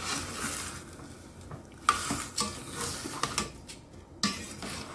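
Metal spoon stirring fish heads, ginger and tomatoes in a stainless steel pot, with a wet scraping and several knocks of the spoon against the pot from about halfway through.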